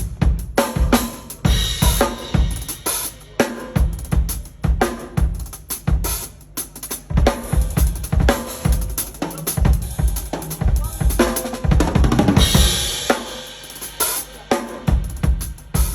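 Acoustic drum kit played as a groove, with kick drum, snare and hi-hat in a steady beat. About three-quarters of the way through a quick run of strokes leads into a cymbal crash.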